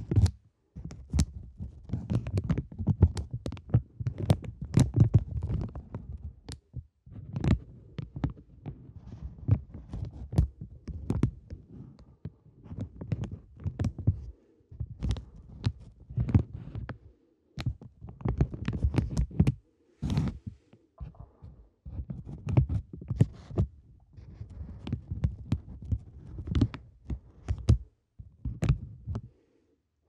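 Clear plastic film crinkled and squeezed by hand close to the microphone: sharp crackles over heavy low rumbling handling noise. It comes in bursts with short silent pauses, around 7, 14, 17 and 20 seconds in and again near the end.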